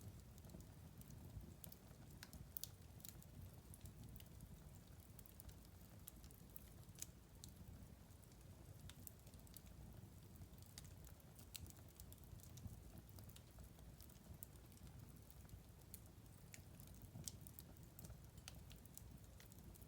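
Wood fire crackling in a fireplace, faint: frequent irregular sharp pops and snaps over a steady low rumble.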